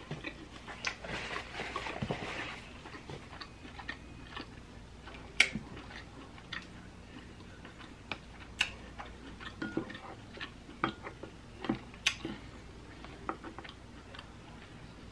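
Close-up eating sounds over boiled seafood: chewing, with scattered sharp clicks and smacks, and a short noisier stretch of sucking about a second in.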